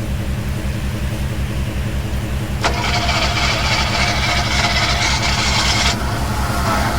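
An engine idling with a steady low, pulsing throb. About two and a half seconds in, a loud hiss starts suddenly and cuts off about three seconds later.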